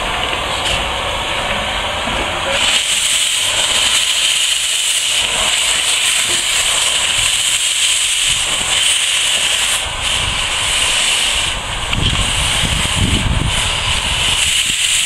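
Steam tank locomotive No. 403 blowing steam from its cylinder drain cocks: a loud, steady hiss that starts abruptly about two and a half seconds in. A low rumble sits under the hiss near the end.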